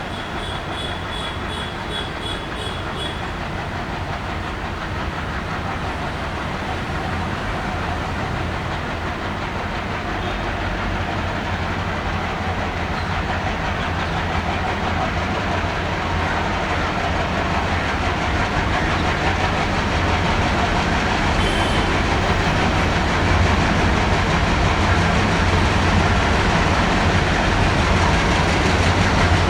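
ALCo diesel-hauled passenger train running on the track, its engine rumble and wheel clatter growing steadily louder as it approaches.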